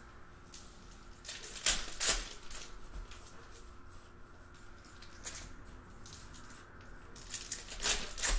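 Foil wrapper of a trading-card pack crinkling and tearing as it is handled and opened, in two clusters of short crackles: one about a second and a half in, and another near the end.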